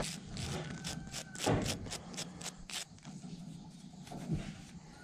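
A small stiff-bristled brush scrubbing dirt off a dug-up button in quick short strokes, about five a second, stopping about three seconds in. There is a sharp knock at the start and a softer bump partway through.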